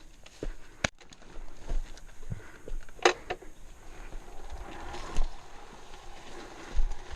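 Irregular knocks and clatter from a Montesa Cota 315R trials motorcycle moving slowly over a rough forest track, with sharp knocks about a second in, at three seconds and a little after five seconds.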